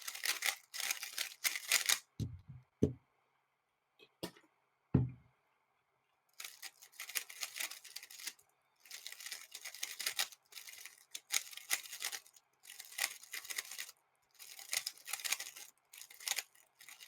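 Plastic 3x3 speed cube being turned fast: runs of rapid clicking turns broken by short pauses, a timed solve in progress. A few soft low thumps come in the first five seconds.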